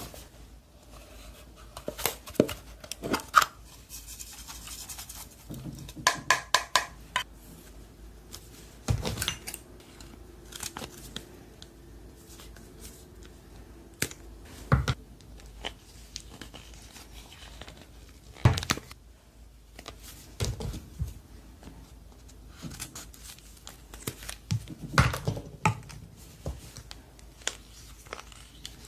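Slime being squeezed and poked by hand, giving scattered sharp pops and crackles, with a quick run of clicks about six seconds in.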